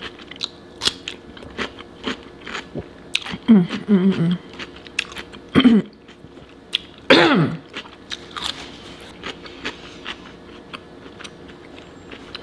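Close-miked crunchy chewing of raw cucumber slices, with many sharp crisp crackles, broken by a few short hums from the eater, the loudest about four and seven seconds in.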